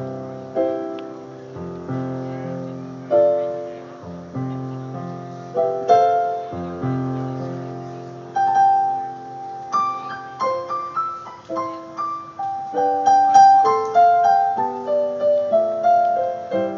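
Piano playing alone: slow chords held in the bass with a melody above them, the notes growing quicker and higher in the second half.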